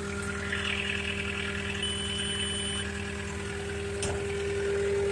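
JCB skid steer loader's diesel engine idling steadily, with a high electronic beep lasting about a second about two seconds in and a sharp click near the end.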